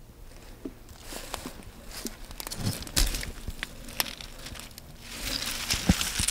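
Footsteps through dry, standing soybean plants, the brittle stalks and pods rustling and crackling, with a couple of louder thumps about midway and near the end.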